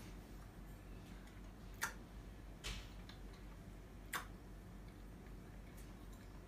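A person chewing a mouthful of thick cream-filled donut with the mouth closed, faint, with three sharp, sticky mouth clicks at uneven intervals.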